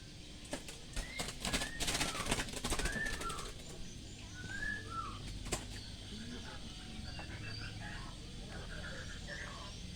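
Birds fluttering their wings in a rapid flurry for about two seconds, with short chirping calls scattered throughout and a single sharp click about five and a half seconds in.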